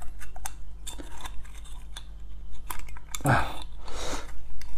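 Metal fork clicking and scraping against the hard inside of a ramose murex (thousand-hand conch) shell in short irregular strokes as the meat is pried out, with a brief breathy vocal sound about three seconds in.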